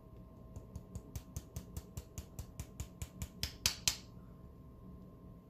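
Rapid, evenly spaced mechanical clicking from a Royal P portable typewriter's mechanism, about five clicks a second, with one louder rasping click just before the clicking stops about four seconds in.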